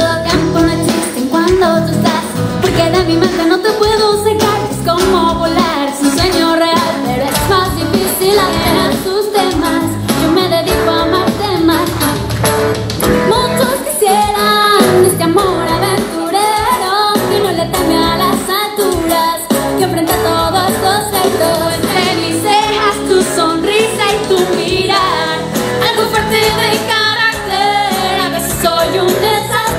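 A woman singing a song into a microphone, accompanied by acoustic guitar.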